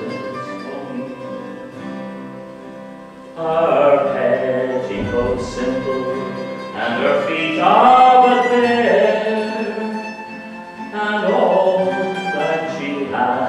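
A mandolin playing a slow tune while a man sings a ballad over it. The first few seconds are quieter, and fuller sung phrases come in about three and a half seconds in and again near the end.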